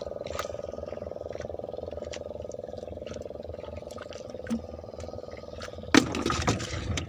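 Light clicks and rustles of a hook being worked free of a diamond trevally's mouth with a cloth, over a steady low hum with a fast even pulse. About six seconds in comes a burst of loud thumps and slaps on the fibreglass deck.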